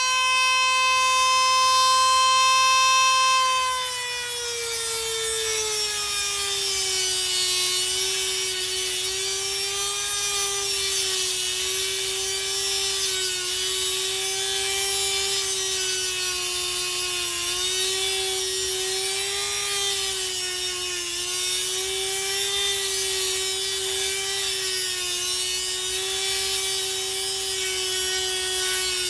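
Dremel rotary tool running with a steady high whine that drops in pitch about four seconds in and then wavers up and down as the tool is loaded, cutting into a seized, cross-threaded bicycle pedal.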